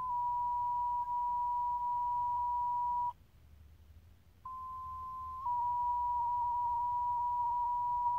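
Fire dispatch two-tone sequential paging tones coming through Motorola Minitor pagers' speakers during a pager test. A high steady tone holds for about three seconds and stops. After a pause of about a second a second page begins: a one-second tone that steps down to a slightly lower tone, which is held.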